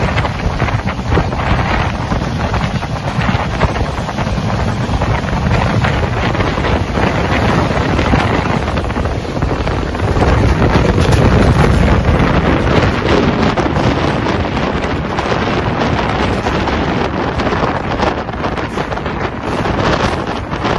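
Wind rushing over the microphone from a fast-moving passenger train, over the steady running noise of the coaches on the track. It grows louder for a few seconds about halfway through.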